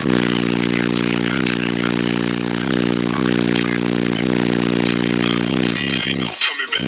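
Two Sundown Zv.4 12-inch subwoofers playing bass-heavy music very loud inside a pickup cab, with deep held bass notes that change every second or so. The bass briefly cuts out near the end.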